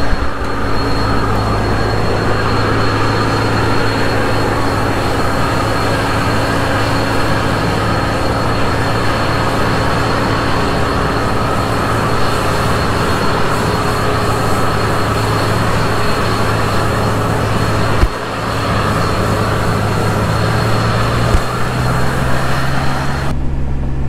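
Almond sweeper's engine and blower fan running steadily: a constant rush of blown air over a low engine drone, with a faint high whine. Near the end the air rush drops away, leaving only an engine drone.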